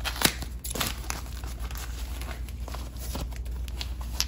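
Plastic and foam packing wrap crinkling and tearing, with snips of scissors, as a wrapped item is cut open. Irregular crackles and clicks, the sharpest about a quarter second in.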